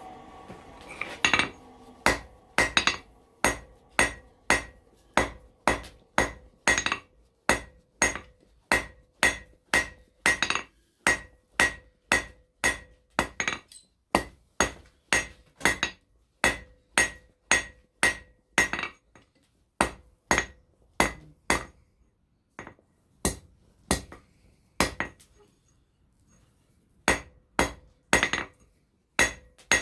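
Blacksmith's hand hammer striking hot steel on an anvil in a steady rhythm of about two blows a second, each blow ringing, with a few short breaks in the second half.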